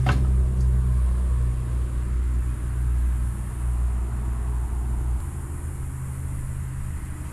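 Steady low mechanical hum from a running machine, with a single knock right at the start; the deepest part of the hum drops away about five seconds in.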